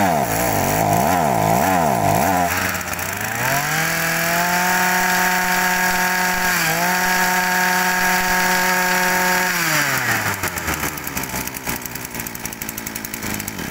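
Rabbit NB2670 brush cutter's small two-stroke engine revved by hand at the carburetor throttle. A few quick rev blips, then it is held at high revs for about five seconds with a brief dip. It drops back to idle and fades near the end.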